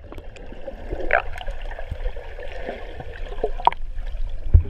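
Swimming pool water heard with the microphone underwater: a muffled gurgling and sloshing over a low rumble, with a few faint clicks and a dull thump near the end.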